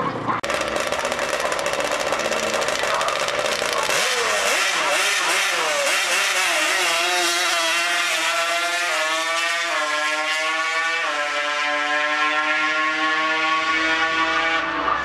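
Drag-racing ATV engine accelerating hard down the strip, its pitch climbing and dropping back at each of several upshifts, then holding a steady high note.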